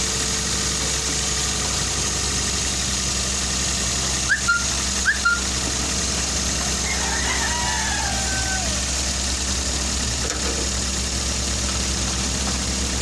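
Toyota Vios engine idling steadily, now starting at one click after its hard-starting fault was fixed. Two short, sharp chirps about four and five seconds in, the loudest sounds, and a brief wavering, falling whistle a few seconds later.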